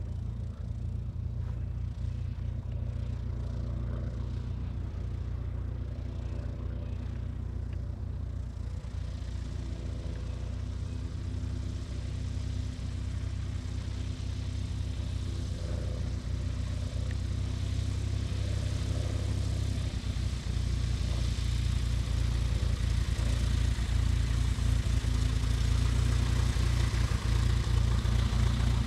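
Single-engine Mooney M20J-type light aircraft taxiing at low power, its four-cylinder Lycoming IO-360 engine and propeller running at a steady idle. The sound grows louder over the second half as the plane taxis up close.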